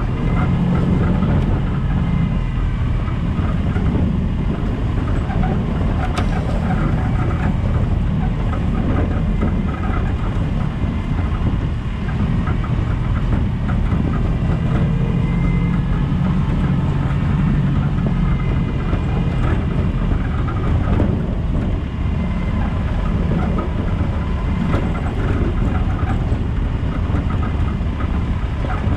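Land Rover Discovery 200Tdi's 2.5-litre four-cylinder turbodiesel running steadily under way, with many small knocks and rattles throughout.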